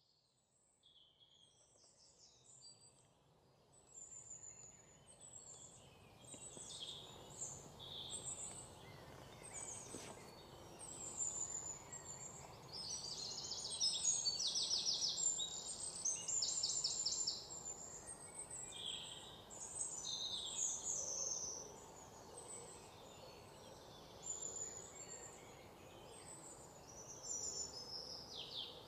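Many small birds chirping and trilling over a steady low background hiss. The sound grows louder over the first few seconds, and the busiest run of fast trills comes around the middle.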